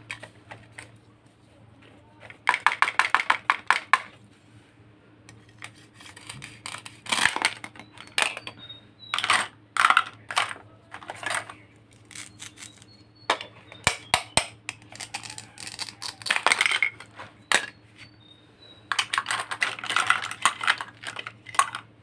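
Small hard plastic toy kitchen pieces being handled, clicking and clacking in bursts, with a quick run of taps a few seconds in and several more clusters after.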